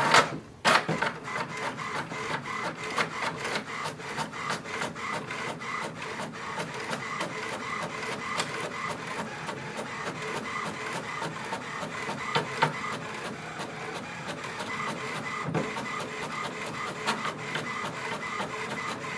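HP Envy 6455e inkjet printer printing its colour welcome page: the print-head carriage runs back and forth with a steady train of regular mechanical clicks as the sheet feeds out. Two sharper clicks come right at the start, as the paper is picked up.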